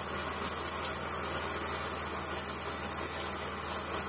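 Handheld shower head spraying a steady stream of water into a bathtub, with a steady low hum underneath.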